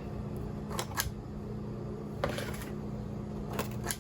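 A spoon clicking and scraping against a baking tray three times, pressing holes into thumbprint-cookie dough, over a steady low hum.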